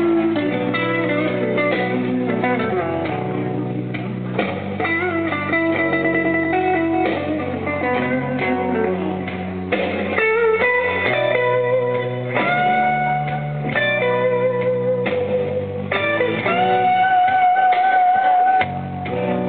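Instrumental break in a blues song: a guitar solo of held, bent notes with vibrato over a stepping bass line, ending on one long wavering note near the end.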